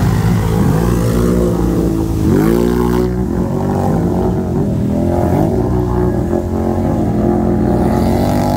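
ATV engines revving hard in a mud bog, their pitch rising and falling as the quads churn and spin through deep mud; one sharp rev climbs about two seconds in.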